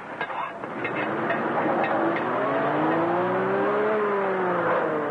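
Vintage car's engine pulling away and speeding up, its pitch rising and then falling again near the end, after a few sharp clicks at the start.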